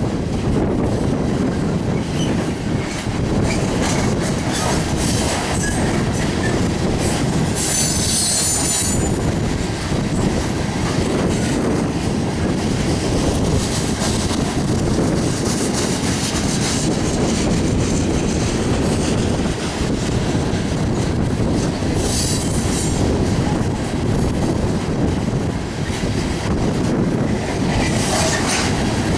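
Loaded coal train's cars rolling past at close range: a steady heavy rumble with wheel clatter over the rail joints, and brief high-pitched wheel squeals several times, the longest about eight seconds in.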